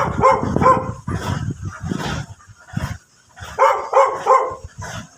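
A dog barking in short runs of two or three barks, over a low rumble that fades out about three seconds in.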